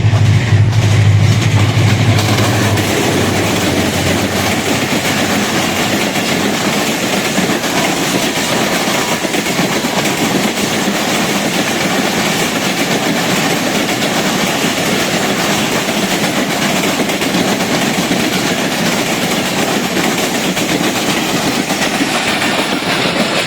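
Express passenger train running through a station at full speed, its carriages rattling over the rail joints in a loud, steady rush of wheel noise, with a low hum for the first couple of seconds.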